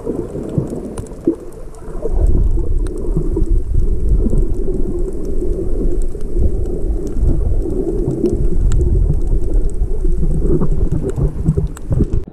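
Muffled underwater sound picked up by a camera held below the surface: a steady low rumble of moving water that gets louder about two seconds in, with faint scattered clicks.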